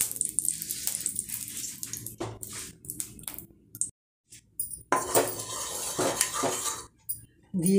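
A spoon and then a wooden spatula scraping and tapping around the inside of a kadai (wok) holding a little cooking oil. There is a pause of about a second midway before the scraping resumes.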